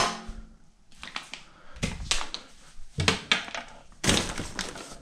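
A sharp metallic clang with a short ring, as something is set down in a stainless steel kitchen sink, then a series of knocks and clatters of kitchen things being handled and moved about in a cupboard, with a busy burst about four seconds in.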